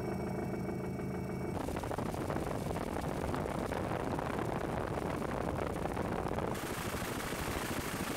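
Helicopter engine and rotor noise heard from on board: a steady, fast-beating din with no voices. Its character changes abruptly about a second and a half in and again about six and a half seconds in.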